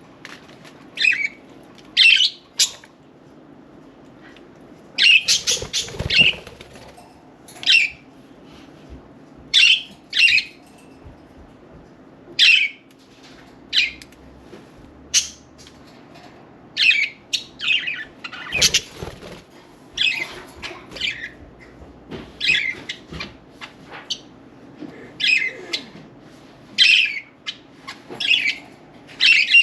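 Budgerigars chirping and squawking in short, high calls, one or two a second. Wings flutter loudly about six seconds in and again a little past midway.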